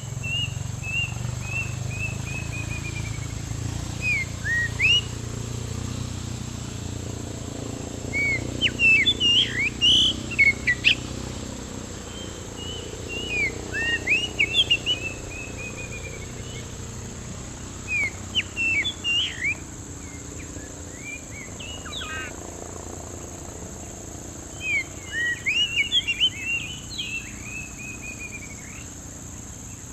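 Oriental magpie-robin song: short bouts of sharp whistled notes and falling runs of notes, with pauses of a few seconds between bouts. A steady high hiss runs underneath.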